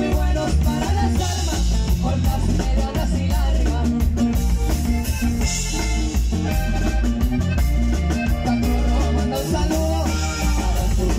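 Live norteño band playing a song: button accordion over electric bass, drum kit and guitar, with a steady beat.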